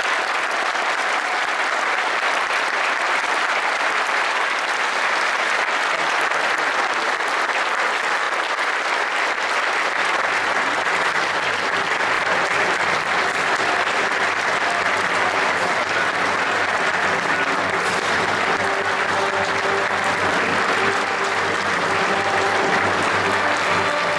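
Audience applauding steadily and at length, with faint music coming in underneath about ten seconds in.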